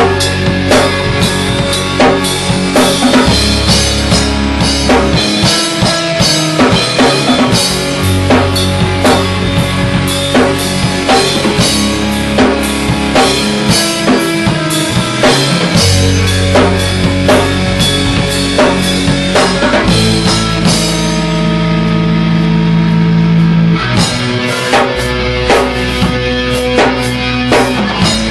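Heavy metal band playing live: down-tuned electric guitar, bass guitar and a drum kit with driving bass-drum hits. For a few seconds after the two-thirds mark the drums thin out under a held chord, then come back in.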